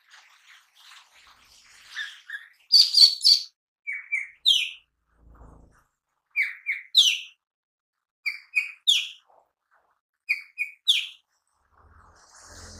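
Male cucak ijo mini, a leafbird, singing. About three seconds in there is a burst of loud chattering notes. After that it repeats one phrase roughly every two seconds: two short chips followed by a downslurred whistle.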